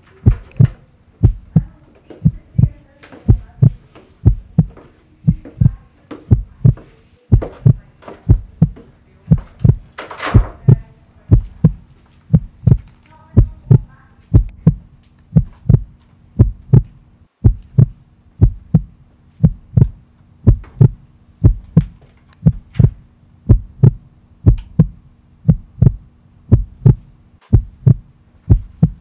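Heartbeat sound effect: steady, evenly repeating deep thumps that build suspense. A brief rushing noise comes about ten seconds in.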